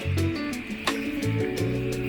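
Background music: plucked guitar notes over a bass line, with a sharp drum hit about every second and a half.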